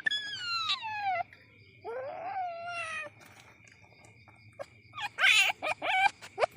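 Young civet calling: a long falling cry, then a cry that rises and falls, and after a pause a quick run of short cries, the kind of calls used to lure civets. A faint steady high tone runs under them.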